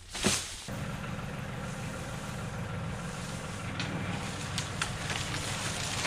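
Compact tractor engine running steadily under load, starting abruptly after a sharp knock about half a second in, with a few faint snaps of wood near the end.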